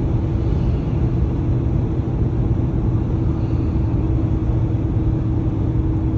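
Road noise inside a car's cabin while driving at highway speed: a steady rumble of tyres and engine with a constant low hum.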